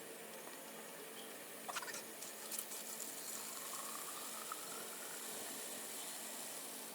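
Faint hiss of water spraying from a garden hose-end sprayer, with a few clicks near the start; the spray grows fuller about two and a half seconds in.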